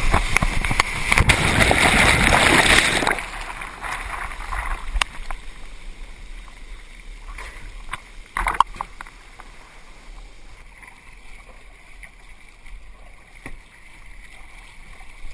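Rushing whitewater of a surf wave around a kayak for about three seconds, then quieter water washing against the hull with small knocks and one short splash about eight seconds in.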